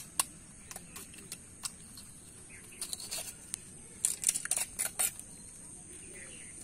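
A metal blade striking and scraping a snail shell against a brick: sharp clicks and ticks, with quick flurries of scraping clicks about three seconds in and again from about four to five seconds, as the shell is cracked and the flesh cut out.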